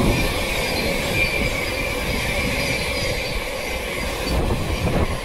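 Thameslink Class 700 electric multiple unit passing through the station: a steady rush of wheels on rail with a high whine running through it.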